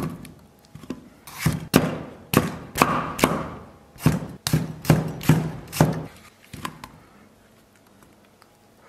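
A Chinese cleaver chops tomatoes into large chunks on a thick wooden chopping block: a dozen or so knocks of the blade hitting the wood, some in quick pairs. The chopping stops about two-thirds of the way through.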